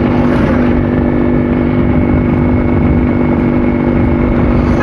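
Yamaha RX100 two-stroke single-cylinder motorcycle engine running at a steady, unchanging pitch while being ridden.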